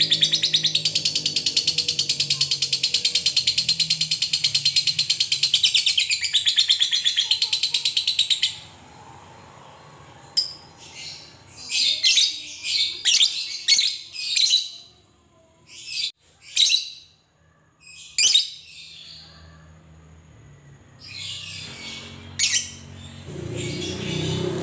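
Fischer's lovebird singing its ngekek: a loud, fast, continuous high chattering trill for about eight seconds. It then breaks off into short, sharp calls at irregular spacing, and the chattering builds again near the end.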